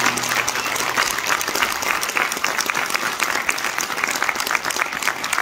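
Audience applauding, dense clapping throughout. The song's last held note fades out in about the first second.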